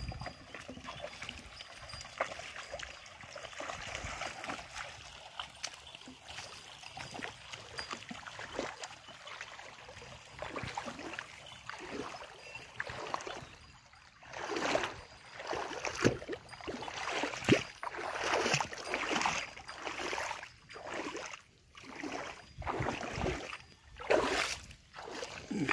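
Shallow flowing water trickling and splashing as cattle wade through it. About fourteen seconds in this gives way to swishing footsteps through grass and low plants, roughly one a second.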